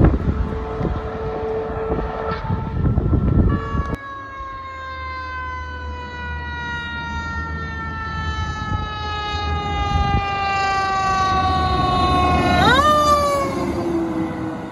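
Fire truck siren sounding in one long, slowly falling tone, then sweeping quickly up again near the end and falling off as the truck gets louder. In the first few seconds a passing fire engine's rumble and wind noise on the microphone are loudest.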